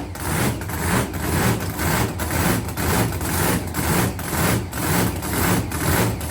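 The engine of a 2006 Pro Mod Viper drag car idling loudly in an uneven lope. Its loudness swells and dips about twice a second.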